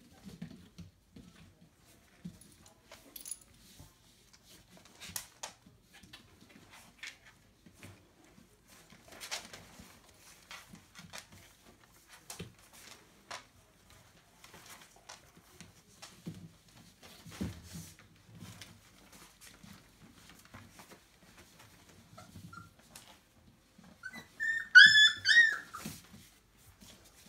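Four-week-old Entlebucher puppies: soft scattered clicks and rustles for most of the time, then near the end a puppy gives a high, wavering whine lasting about two seconds, the loudest sound.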